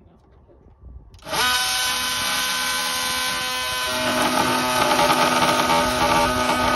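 Small cordless power tool switching on about a second in with a quick spin-up, then running with a steady high whine, getting louder and rougher about four seconds in.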